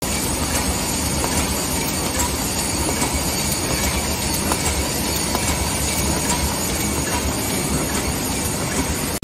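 Aluminium aerosol can production line running: a steady, dense mechanical rattle with light metallic clatter of machinery and cans on the conveyor.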